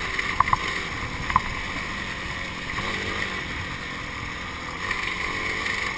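Yamaha enduro motorcycle engine running under way on a rough, muddy trail, heard from an onboard camera, with a few sharp knocks about half a second and a second and a half in.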